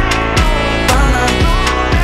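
Background music: a pop song's instrumental backing with a steady beat of bass-drum hits about twice a second.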